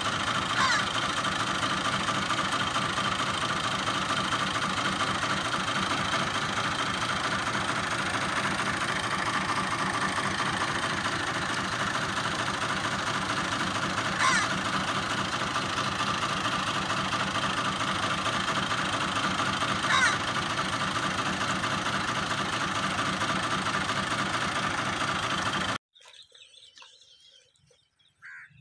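An engine running steadily, with a few short rising chirps over it. Near the end the sound cuts off abruptly, leaving near quiet.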